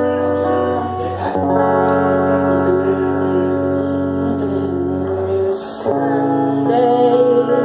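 A woman singing a slow song to her own electric guitar: held, ringing chords that change twice, with her voice wavering over them.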